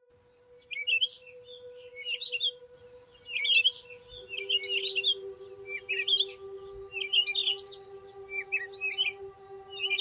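Birds calling: clusters of short, quick chirping notes repeated about once a second, over a steady ambient music drone of held tones, a lower tone joining about four seconds in.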